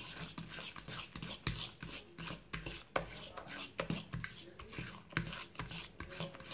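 A hand utensil stirring thick banana cake batter in a plastic bowl, working dry flour into the wet mix. It makes irregular scraping, sticky strokes, about two or three a second.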